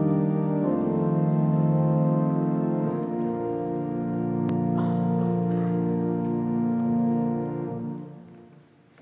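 Pipe organ holding sustained chords over a deep pedal bass, changing chord a few times, then fading out about eight seconds in: the close of an organ prelude.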